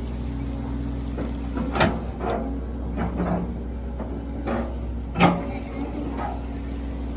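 Excavator diesel engine running steadily, with a handful of sharp knocks and clanks from the machine's bucket and arm as it works, the loudest about five seconds in.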